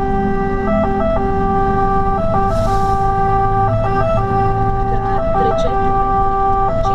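Italian fire engine's two-tone siren sounding continuously, heard from inside the cab, switching back and forth between a lower and a higher note over the steady hum of the truck's engine. A short hiss comes about two and a half seconds in.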